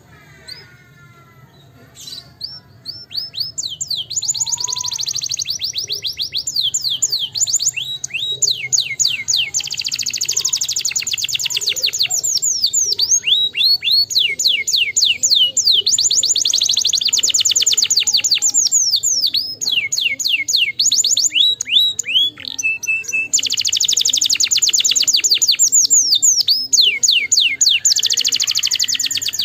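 Domestic canary singing: long, fast trills of rapidly repeated high notes, beginning about two seconds in and rolling on with only brief pauses.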